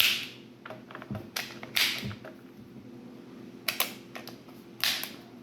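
Zigana PX-9 pistol's magazine release being worked, the magazine dropping free and being seated again: about half a dozen sharp clicks and clacks, irregularly spaced.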